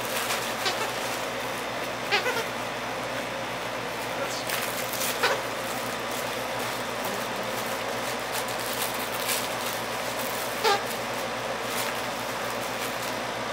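Squeaker inside a red plush fox dog toy squeaking as a dog chews it: a handful of short squeaks spread out, the loudest about two seconds in and again near eleven seconds.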